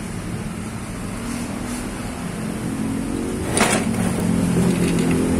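Steady engine hum, growing slowly louder, with a single sharp click about three and a half seconds in.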